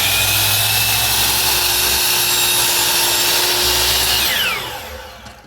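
DeWalt DWS780 12-inch sliding compound miter saw running at full speed while making a 15-degree miter cut. Its whine holds steady for about four seconds. Then the trigger is released and the blade spins down, the pitch falling away near the end.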